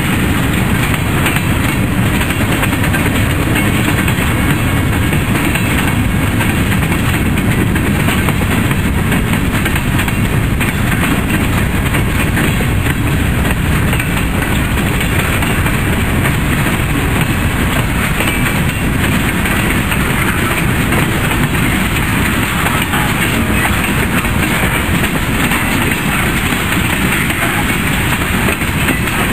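Freight cars of a mixed manifest train (gondolas, covered hoppers, boxcars, flatcars) rolling past at close range: a steady, loud rumble of steel wheels on rail with clickety-clack.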